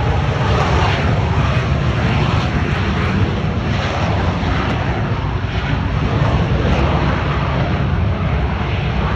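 Aircraft engine noise, loud and steady, a dense rush of sound heaviest in the low end.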